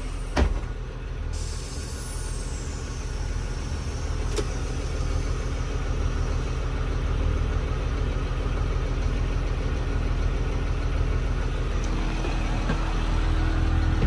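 Blue Bird Vision school bus engine idling steadily, heard from the driver's seat. A sharp thump about half a second in, and a steady low tone joins about twelve seconds in.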